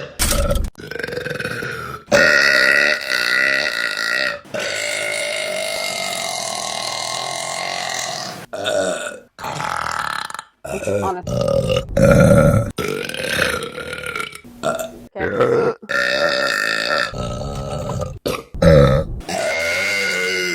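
Women burping in a rapid series of separate clips cut back to back, more than a dozen in all. Some burps are long, drawn-out and held on one pitch for several seconds, others short; each one ends abruptly at the cut to the next.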